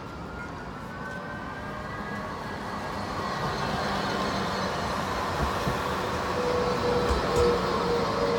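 An electric tram approaching and growing steadily louder, with a whine from its motors rising in pitch over the first couple of seconds.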